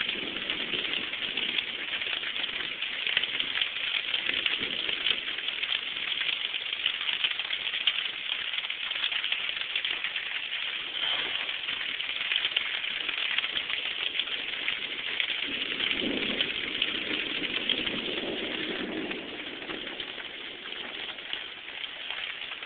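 Rain falling steadily in a thunderstorm, heard through a phone's microphone as an even hiss.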